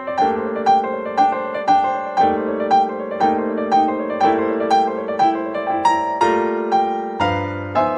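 Calm piano music: single notes struck at an even pace of about two a second over held lower chords.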